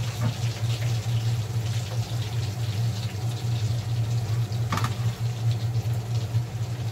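Breaded chicken cordon bleu frying in hot oil in a pan, sizzling steadily over a steady low hum, with a single sharp knock about five seconds in.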